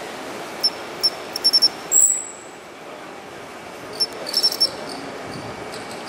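A matsumushi (pine cricket) calling in two bouts, each a few short high chirps that quicken into a fast run, about half a second in and again about four seconds in. A brief, higher squeak about two seconds in is the loudest sound, over a steady low background noise.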